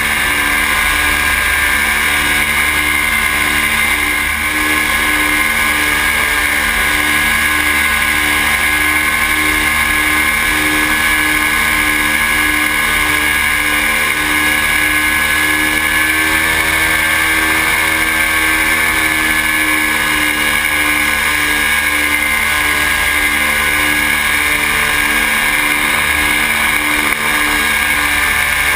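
Paramotor engine and propeller running steadily in flight, the pitch wavering slightly up and down partway through, with wind rumbling on the microphone.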